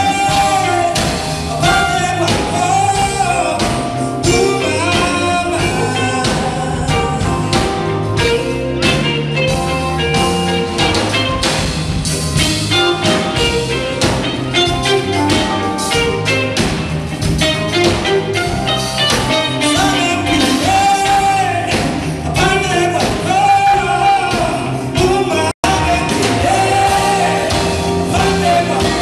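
Live band playing: a singer over electric guitar and drum kit, with a steady beat. The sound cuts out for an instant near the end.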